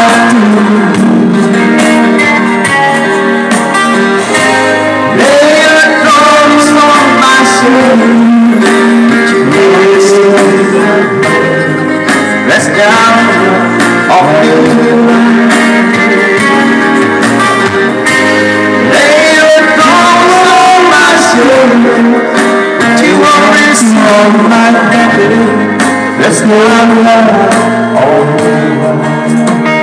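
Live music from electronic keyboards playing a song with full backing, a man's singing voice and a guitar-like lead line over it.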